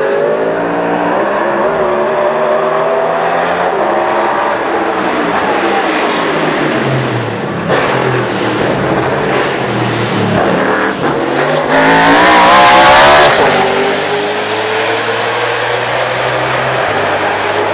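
Toyota Camry NASCAR stock car's V8 engine running hard on track, its pitch climbing and dropping repeatedly as it accelerates and shifts. It is loudest about twelve seconds in, with a high rising pitch that falls away sharply, then climbs slowly and steadily again near the end.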